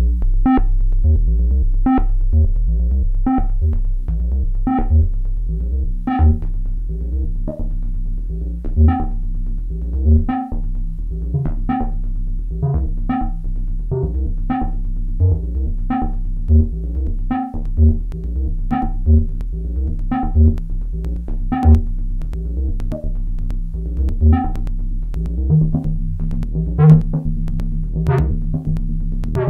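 Dreadbox Typhon analog synthesizer playing a sequenced pattern: short plucked notes repeating about every two-thirds of a second over a steady low bass. A held low note comes in near the end.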